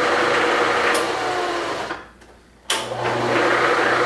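Bridgeport step-pulley milling machine head running, a steady mechanical whir with a hum. About two seconds in it cuts out, then starts again abruptly under a second later, as the spindle is switched off and back on.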